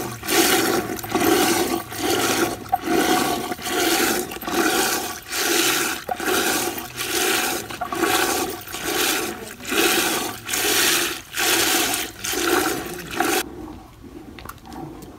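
Yogurt sloshing in a clay pot as a wooden churning stick, spun back and forth by a hand-pulled rope, churns it into butter: a regular swish about once every three-quarters of a second, with the butter already starting to gather. It stops suddenly near the end, leaving only faint outdoor background.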